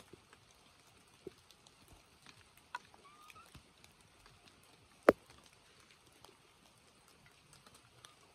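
Scattered light taps and clicks, with one sharp, loud knock about five seconds in.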